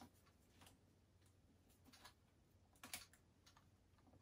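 Faint clicks and taps of a plastic snorkel mask and its rubber strap and buckle being handled and fitted together, with one sharper click about three seconds in.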